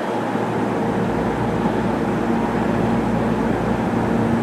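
Steady rumble with a low electrical hum: railway noise on a station platform, with no single event standing out.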